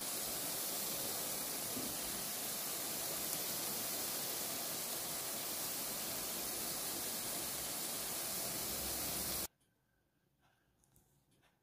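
Oil sizzling steadily around potato patties shallow-frying in a pan, an even hiss that cuts off suddenly near the end.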